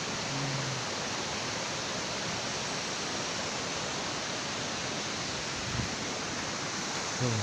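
Steady rushing of flowing water. There is a short low vocal sound just after the start and again at the very end, and a soft thump about six seconds in.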